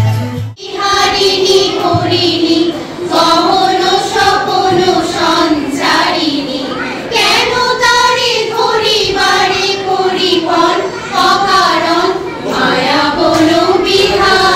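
Recorded dance music cuts off abruptly, and a group of women sing a song together in unison into a microphone, with no instrumental backing.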